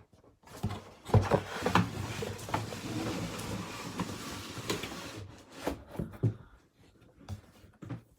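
Cardboard box and packaging being handled and opened: a few seconds of steady rustling and scraping with sharp knocks, then scattered separate clicks and taps.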